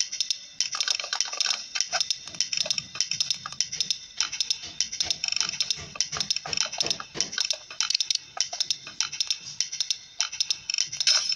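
Dense, rapid clicking, many clicks a second, with a short pause just after the start.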